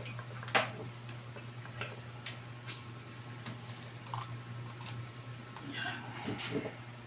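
Small clicks and taps of hand tools on a circuit board during soldering, one sharp click about half a second in and a brief rustle near the end, over a steady low electrical hum.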